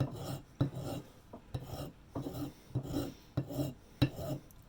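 Hand file rasping across the chipped edge of a bakelite boiler cap in a steady run of about seven short strokes, roughly half a second each, several starting with a sharp tick. The filing is smoothing off the chipped, uneven edge.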